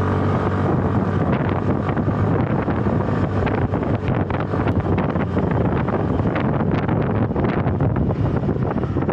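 Wind buffeting the camera microphone at riding speed: a loud, steady rush with a low rumble that cuts in suddenly.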